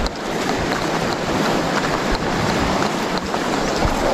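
Wind rushing steadily on the microphone, with surf washing onto a sandy beach.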